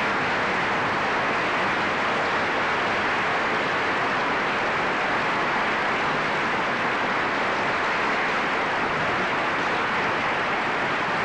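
Audience applauding steadily: dense, even clapping with no music.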